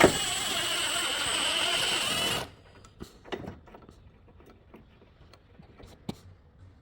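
Power tool running in one loud burst of about two and a half seconds on the subframe hardware, with a steady high whine over a dense rattle, then cutting off abruptly. A few faint knocks follow.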